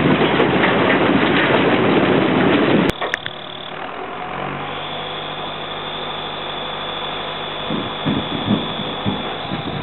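Sugar beets pour from a tipping tractor trailer into an open steel railway wagon with a loud, dense rumbling clatter that stops abruptly about three seconds in. Then a tractor engine idles steadily, with a few knocks near the end.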